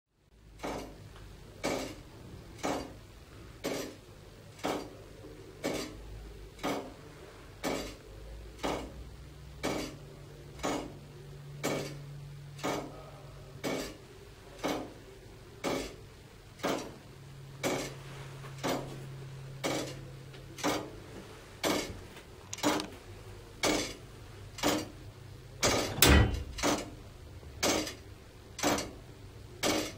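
Church tower clock movement ticking steadily, about one metallic tick a second, the beat of its escapement. A heavier knock comes about 26 seconds in.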